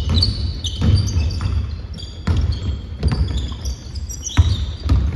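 A basketball bouncing on a wooden gym floor as it is dribbled up the court, about six separate bounces at an uneven pace, with short high squeaks of sneakers on the floor in between.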